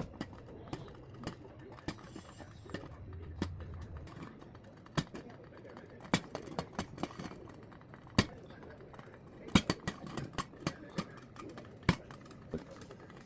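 Irregular sharp clicks and taps of hard parts being handled, with a few louder knocks about five, eight, nine and a half and twelve seconds in: the glass-and-metal pieces of a plastic-free coffee maker knocking together.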